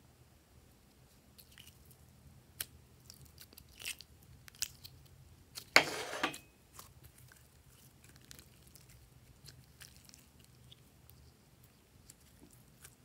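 Glossy slime being squeezed and stretched by hand: scattered small sticky clicks and crackles, with one louder squelch about six seconds in.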